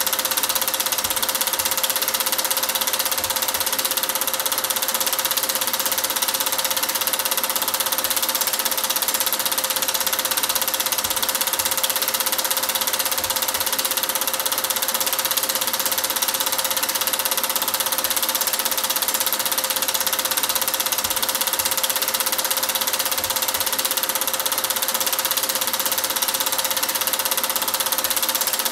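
Movie film projector running: a steady mechanical whirr with a constant hum and heavy hiss that does not change.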